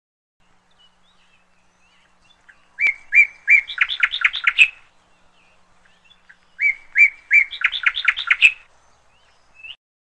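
A songbird sings the same short phrase twice, each about two seconds long: a few separate notes, then a quicker run of notes. Faint chirps come between the phrases, and a short rising note comes near the end.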